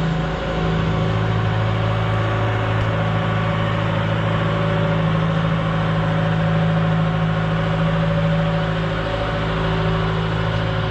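Diesel engine of a 120 excavator running steadily under work, with a constant even drone and no change in pitch.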